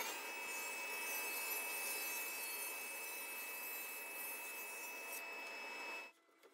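Table saw running at speed with a steady high whine as the blade finishes and clears a rip cut through a board. The sound cuts off suddenly about six seconds in.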